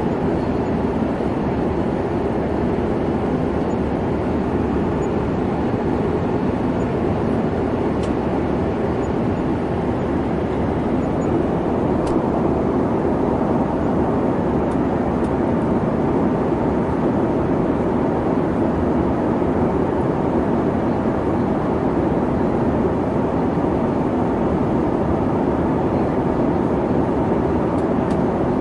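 Boeing 737 in flight: a steady, unbroken noise of its engines and rushing air, level throughout.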